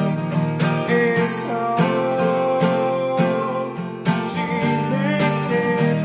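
Cutaway acoustic guitar strummed in a steady rhythm of chords, with no words sung.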